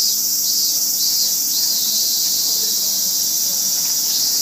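A loud, steady, high-pitched chorus of insects shrilling without a break.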